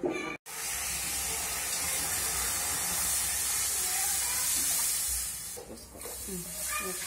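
Water poured from a steel tumbler into an empty metal kadai: a steady splashing stream that eases off about five seconds in. A few short voice-like calls come near the end.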